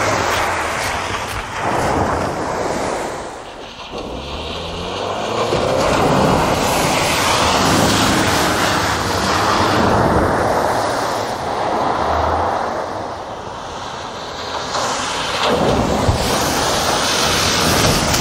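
A Subaru Outback Wilderness's 2.4-litre turbocharged flat-four engine and tyres working along a loose dirt and mud trail, mixed with heavy wind noise on the microphone. The sound dips partway through and grows louder again as the car comes close near the end.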